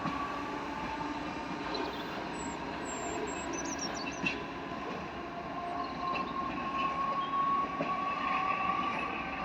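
Class 507 electric train running past on the line, with a steady whine that grows louder in the second half.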